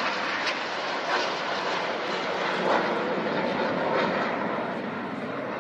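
Jet noise from a formation of BAE Systems Hawk T1 jets flying past, their Adour turbofan engines making a steady rushing sound that eases a little near the end as the jets draw away.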